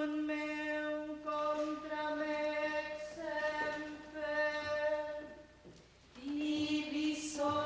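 Women's voices chanting a Latin psalm in unison on one held reciting note, in phrases of a second or two, with a short break about two-thirds of the way through.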